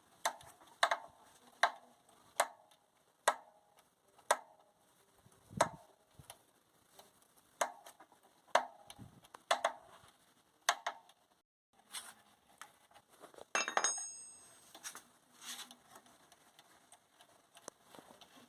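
Sharp metallic clinks and knocks, irregular and roughly one a second, with a brighter ringing clink about two-thirds of the way through, from a motorcycle front wheel being worked by hand. The mechanic suspects a failing wheel bearing.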